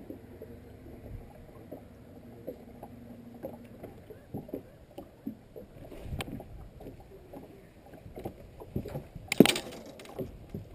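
Water slapping around a bass boat's hull with scattered small knocks on the deck, and one loud sharp noise about nine and a half seconds in.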